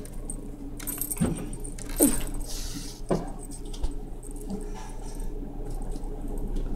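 Yarn and a metal needle rustling and rubbing as hands pull a yarn-wrapped needle through knitted fabric, close to the microphone, for a French knot. A few short falling sounds come about one, two and three seconds in.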